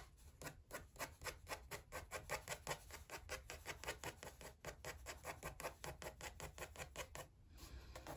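Pencil scratching quick short strokes across watercolor journal paper, hatching grass texture: a fast, even run of scratchy strokes, about five a second, with a short pause about seven seconds in.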